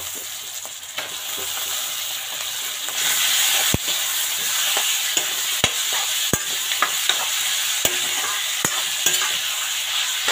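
Pork pieces sizzling in hot oil in an aluminium kadai, stirred with a steel ladle that knocks and scrapes against the pan. The sizzle grows louder about three seconds in, with irregular sharp clicks from the ladle.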